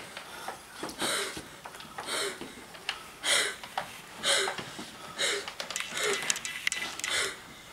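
A performer voicing the puppet's rhythmic gasping breaths, about one a second, each ending in a short falling note, as a woman coming back to life. There are a few light clicks near the end.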